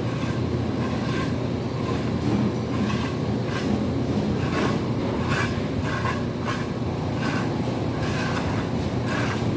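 A steady, loud low machine rumble with irregular knocks and clatter over it, a few a second.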